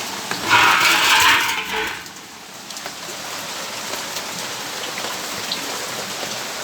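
Steady rain falling and pattering on surfaces, with scattered individual drips. About half a second in, a louder rushing surge rises over it and lasts about a second and a half before falling away.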